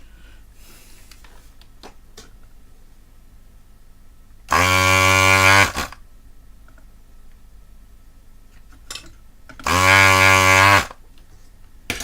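Electric vacuum desoldering tool's pump buzzing twice, each time for about a second, as solder is sucked off a capacitor's pins on the UPS board.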